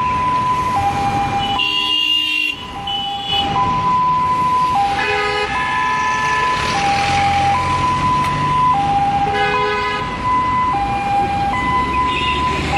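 Ambulance two-tone siren switching between a high and a low note about every second. Short horn blasts sound three times, with engine rumble from traffic underneath.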